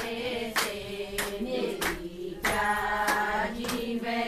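A group of people singing a devotional song with steady rhythmic hand-clapping, a little under two claps a second.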